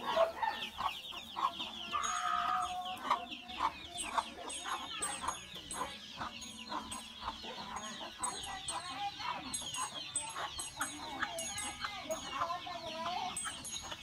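A brood of chicks peeping continuously in fast, high, falling chirps, with hens clucking over them in short repeated calls.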